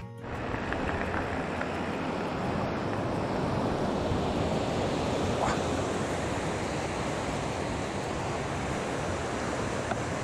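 Steady rushing noise that swells slightly midway.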